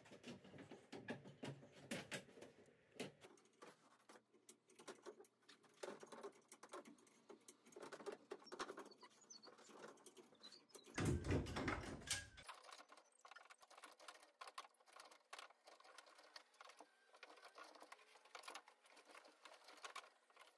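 Faint, scattered clicks and rattles of a small overhead chain hoist and its chain being worked to lift a boat's inboard engine. A louder burst of noise lasting about a second and a half comes just past the middle.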